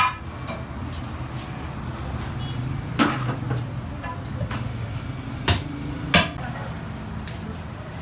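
Three sharp knocks, a little over three seconds in, then twice about five and a half and six seconds in, from a butcher handling lamb meat and tools on a wooden tree-stump chopping block, over a steady low hum.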